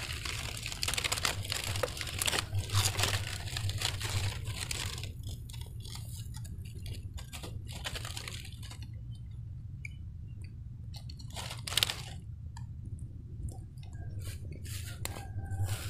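Crackling and clicking kitchen handling noises. They are dense for the first five seconds, then sparse, with one sharp click about twelve seconds in, all over a steady low hum.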